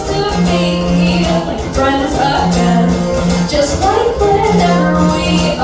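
Live band playing the instrumental intro of a song, with a held low note repeating about every two seconds under plucked and strummed parts.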